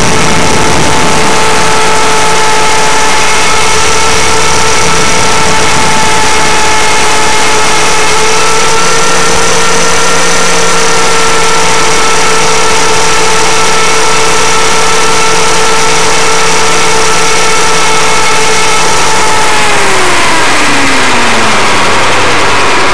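Align T-Rex 500 electric RC helicopter's motor and rotors running loudly with a steady whine, heard from its onboard camera. In the last few seconds, with the helicopter down on the pad, the whine falls steadily in pitch as the motor spools down.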